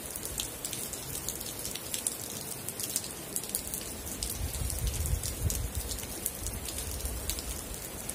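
Rain falling, with many close drops ticking sharply on a surface. A low rumble swells briefly about halfway through.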